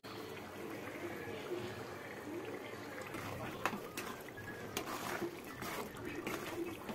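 A thick, oily mango pickle mixture being stirred with a long spoon in a non-stick kadai, with a wet, slopping stir. A few sharp clicks come in the second half as the spoon knocks against the pan.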